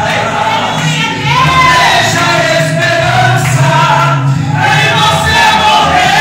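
A man singing a worship song into a handheld microphone, amplified loud through the hall's sound system, sliding between long, wavering held notes.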